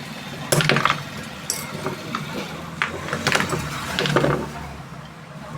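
Metal parts being handled and tapped during a table fan bush-to-bearing repair: a few irregular sharp knocks and clinks over a low background hum, the loudest about half a second in and again around three to four seconds.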